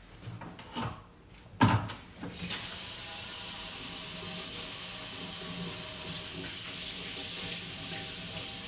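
Kitchen sink tap turned on and running steadily, the water splashing into the sink as hands are washed under it. The water starts about two and a half seconds in, after a few light knocks and one sharper knock.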